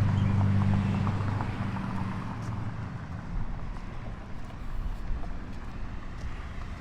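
A vehicle engine humming, its low drone fading away over the first two seconds, leaving a steady low rumble.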